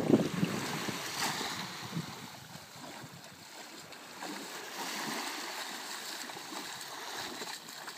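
A person wading through shallow seawater, legs splashing, with small waves lapping. Wind rumbles on the microphone for the first half second.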